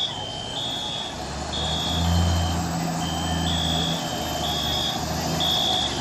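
Electronic alarm sounding a high two-tone signal that switches pitch about every half second. From about a second and a half in, the low rumble of an approaching fire engine's diesel engine rises beneath it.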